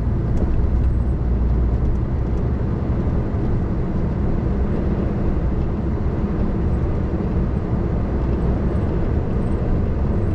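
Steady drone inside a class 1 HGV cab on the move: diesel engine and tyre noise on a wet road.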